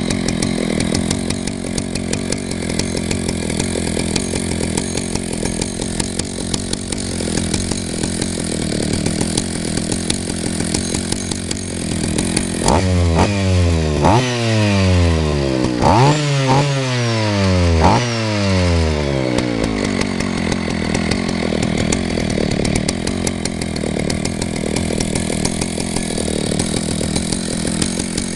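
Vintage Husqvarna L77 two-stroke chainsaw running at a steady idle, then revved up several times in quick succession for about seven seconds midway before settling back to idle.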